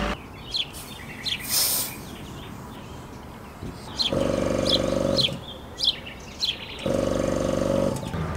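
Petrol-station tyre air pump buzzing in two bursts of about a second each, about four and seven seconds in, as it fills a car tyre. Birds chirp throughout.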